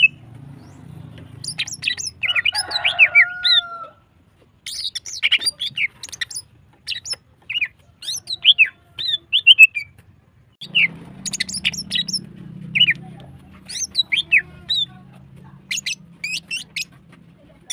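Female green leafbird (cucak ijo) singing in quick bursts of sharp, high chirps and down-slurred whistles, with a lower gliding call about three seconds in.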